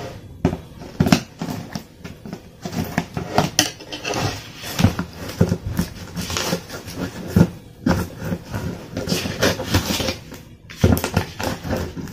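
Scissors cutting through the packing tape on a cardboard shipping box, with the cardboard knocking and scraping as the box is handled: a string of irregular clicks, snips and scratchy rustles.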